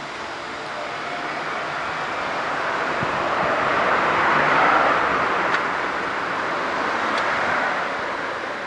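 A road vehicle passing by: a hiss of traffic noise that swells to a peak about halfway through and then fades away.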